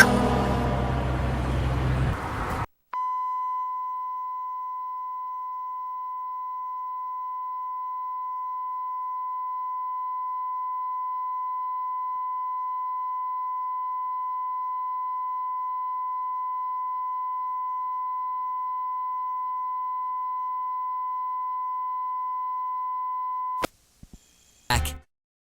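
A couple of seconds of loud, dense, harsh sound cuts off, then a single steady electronic alert tone holds unbroken for about twenty seconds before stopping abruptly. A few short bursts of sound follow near the end.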